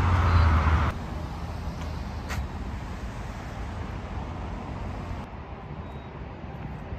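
Road traffic and engine rumble: a steady low engine hum, loud at first, drops abruptly about a second in to a quieter, steady traffic rumble.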